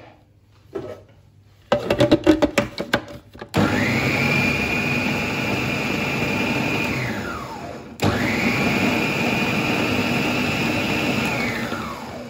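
Food processor pulsing a coarse mixture of cooked chicken and chana dal: two bursts of the motor, each starting abruptly with a steady high whine and running three to four seconds before spinning down with a falling whine. The blending is to break up the remaining whole pieces of dal. Just before the first burst comes a quick run of knocks.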